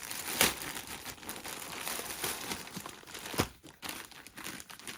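Plastic packaging bag crinkling and rustling as it is handled and opened, with a few sharp crackles, the loudest near the start and about three and a half seconds in.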